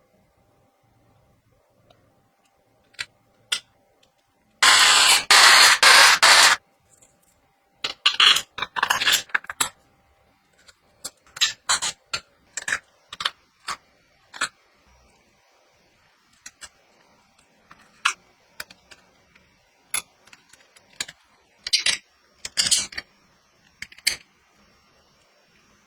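Small metal parts and tools being handled while a machine kit is put together: irregular clinks, rattles and scrapes, with a loud rattling rush of about two seconds near the start.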